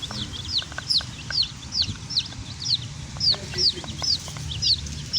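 Baby chicks peeping: a steady run of high, downward-sliding cheeps, several a second, over a low background rumble.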